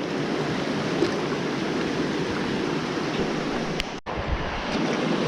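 Steady rush of a mountain stream's flowing water, with a brief break in the sound about four seconds in.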